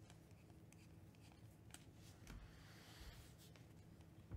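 Faint sliding and rustling of glossy Panini Mosaic trading cards being flipped through by hand, one card sliding off the stack onto the other, with a soft tap right at the end.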